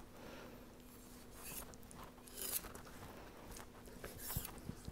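Faint, brief scrapes of a kitchen knife cutting along a raw monkfish fillet on a wooden cutting board as it is trimmed, a few separate strokes.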